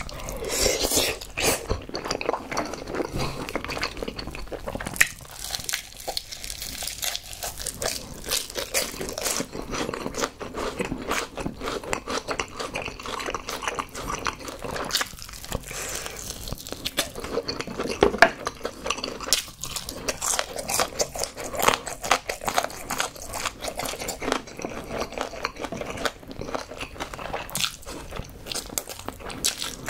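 Close-miked eating: a mouthful of spicy tteokbokki with glass noodles slurped in near the start, then crunchy bites and chewing of crispy honey-glazed fried chicken, a dense run of irregular crackles and clicks.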